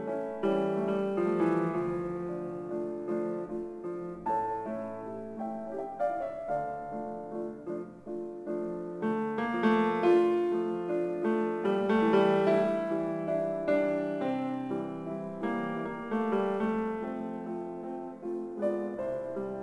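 Piano music: a flowing run of notes and chords, each note struck and then fading.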